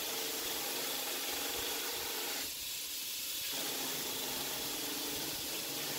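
Belt grinder grinding a hardened, tempered steel knife blade held flat against the belt: a steady hissing rasp of abrasive on steel, easing briefly about two and a half seconds in.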